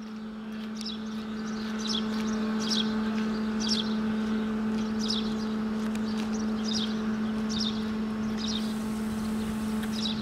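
CFR Class 40 electric locomotive approaching with passenger coaches, giving a steady electrical hum that grows louder over the first two seconds as it draws near. Birds chirp about once a second over it.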